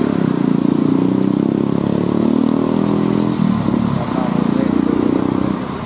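Road vehicle engine running, a loud steady low drone that dips briefly about three and a half seconds in and then picks up again.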